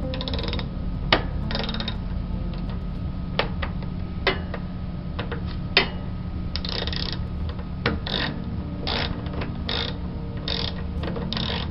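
Hand tool working a small screw, with short bursts of ratchet-like clicking and scraping and a few sharp metal clicks, while the popped-out screw is refitted to the washing machine's suspension stability brace. Under it runs a steady low hum.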